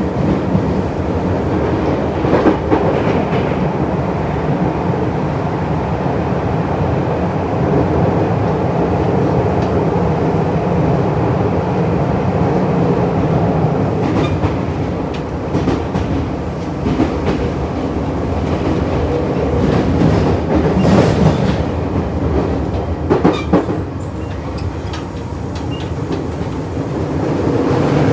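Running noise inside a Tokyo Metro 7000 series electric motor car at speed: a steady rumble of wheels on rail, with scattered sharp clacks as the wheels cross rail joints.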